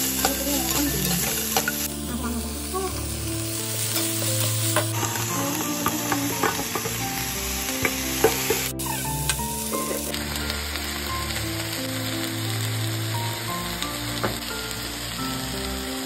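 Chopped vegetables sizzling in hot oil in a pan while a steel spatula stirs them, with frequent small scrapes and clicks of the spatula against the pan.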